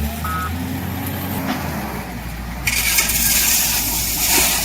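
A low vehicle-engine rumble with a short double beep near the start, then a loud steady hiss that comes in suddenly a little past halfway and is the loudest part.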